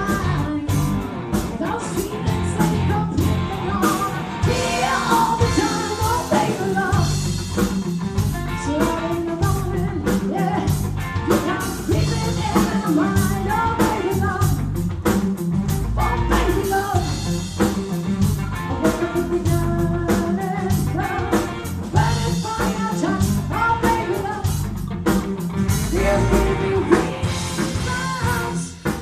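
Live rock band playing: a woman singing over electric guitar, bass guitar and drums.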